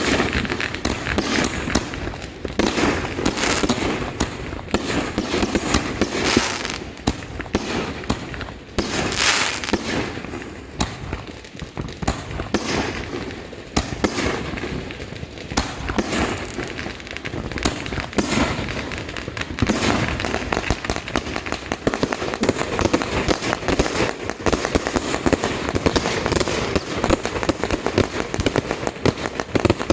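Fireworks and firecrackers going off without pause: a dense run of irregular sharp bangs and pops that thickens into an almost continuous crackle about two-thirds of the way in.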